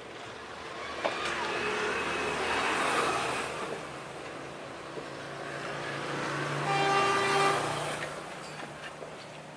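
Motor-vehicle noise that swells and fades twice, with a short horn toot about seven seconds in.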